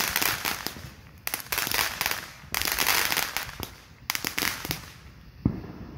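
Spinner firework going off: four bursts of hissing and crackling, each about a second long, then a single sharp pop near the end.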